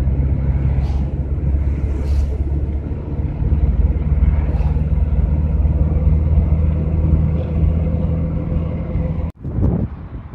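Cabin noise of a GAZelle van on the move: a steady engine and road rumble with a low drone. It cuts off suddenly near the end, giving way to a brief rush of wind on the microphone.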